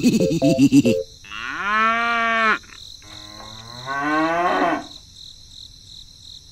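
A cow mooing twice: a long low moo that falls and then holds steady about a second in, then a second moo that rises in pitch about three seconds in. A short jumbled burst of sound comes just before it, at the very start.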